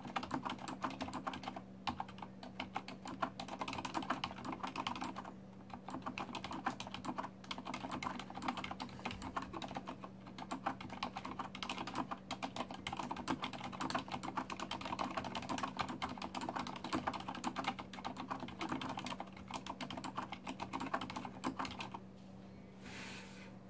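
Fast typing at about 95 words a minute on a Corsair STRAFE RGB mechanical keyboard with Cherry MX Silent switches: a dense stream of dampened keystrokes with a few brief pauses. The typing stops shortly before the end.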